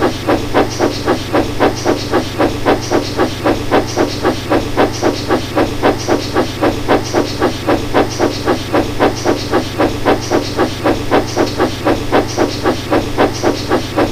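Steam locomotive chuffing: an even run of hissing puffs, a few a second, over a steady low hum.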